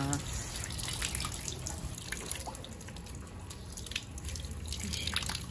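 Water pouring steadily from bamboo spouts into the stone basin of a Shinto shrine's purification fountain, splashing and dripping.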